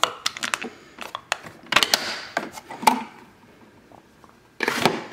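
Plastic clicks and knocks as the lid of a Keurig single-serve coffee maker is lifted open and the brewer is handled, with brief clattering about two seconds in and a short rustling burst near the end.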